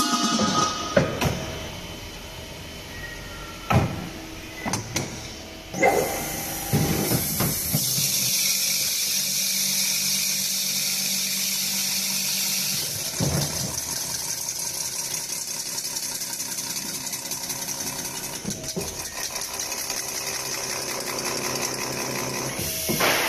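Automatic edge-turning and deburring machine working metal pressure-cooker bodies: a series of clanks and knocks, then from about eight seconds a steady hiss of the tool on the spinning pot rim over the low hum of the machine.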